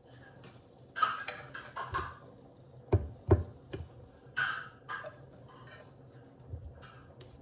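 A metal fork scraping and clinking in a frying pan as cooked liver is pushed out onto a wooden plate, with two sharp knocks about three seconds in.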